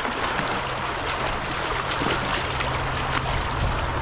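Shallow, fast creek water rushing over a rocky riffle: a steady, even rush with small splashes.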